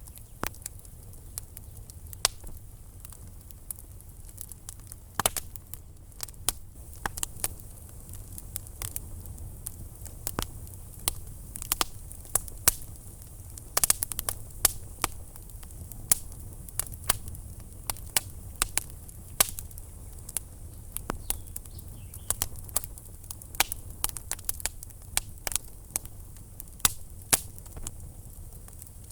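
Wood fire burning in a fireplace, crackling with frequent sharp, irregular pops and snaps over a steady low rumble of the flames.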